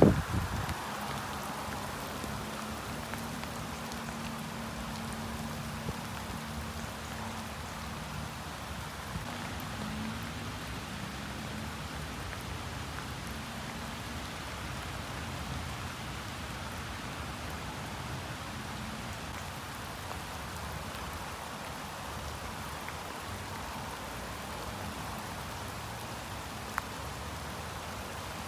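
Steady rain falling, an even hiss. A low steady hum sits under it for roughly the first half, and there is a single knock right at the start.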